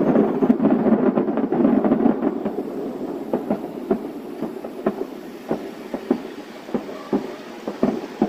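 Distant aerial firework shells bursting: a dense rolling rumble of overlapping booms for about the first two seconds, then a rapid, irregular run of separate sharp bangs, one to three a second.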